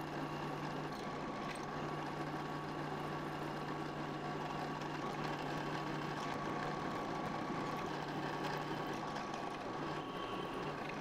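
Drill press motor running steadily with a constant hum while its bit drills into the side of an aluminum block.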